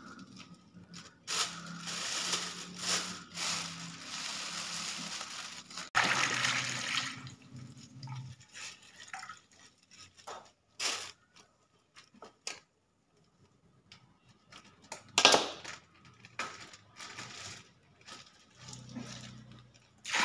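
Coconut milk poured and squeezed out of plastic bags into a large aluminium wok: liquid splashing and plastic crinkling. It comes in stretches, loudest in the first several seconds, with another short burst about fifteen seconds in.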